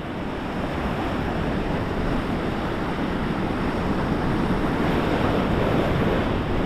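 Ocean surf with wind on the microphone: a steady rushing noise with no distinct events.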